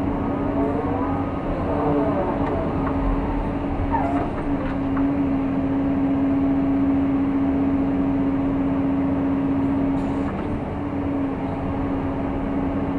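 Caterpillar hydraulic excavator's diesel engine and hydraulics running under load, heard from inside the cab as the machine swings and digs. A steady whine holds throughout over the engine hum, with some tones gliding up and down in the first few seconds.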